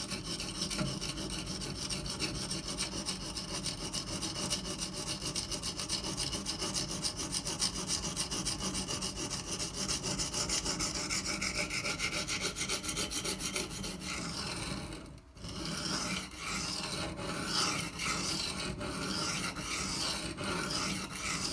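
A CTS-204P steel knife blade scrubbed back and forth on a wet Shapton Pro 120-grit sharpening stone: a steady rasping, stroke after stroke, with a brief pause about two-thirds of the way through. Pressure is held over the back half of the edge to raise a burr there.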